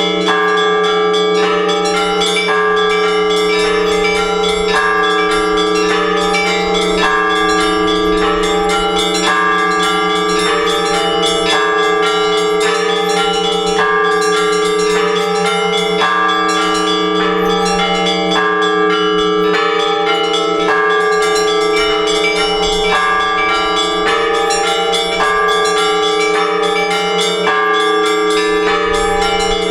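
Orthodox church bells ringing a rhythmic peal: several small bells struck in a pattern that repeats about every two seconds, over the steady hum of the larger bells.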